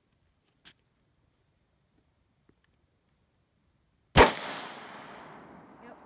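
A single rifle shot from an AR-15 with a 20-inch .223 Wylde barrel and a Seekins Precision muzzle brake, about four seconds in. The sharp report echoes and dies away over the next two seconds.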